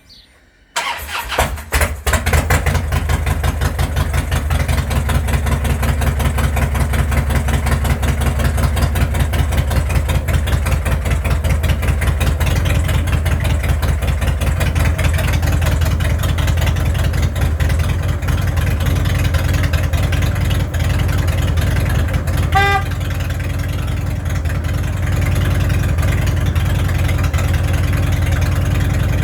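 Harley-Davidson V-twin motorcycle engine starting about a second in, then idling steadily with a rapid, even beat. About two-thirds of the way through there is a brief beep of the horn.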